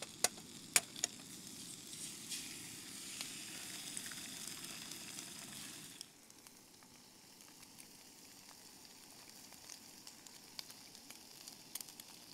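Bacon and a fried egg sizzling in a Fire Maple Feast non-stick aluminium frying pan over a gas camping stove, with a few sharp taps in the first second. The sizzle drops to a quieter level about six seconds in.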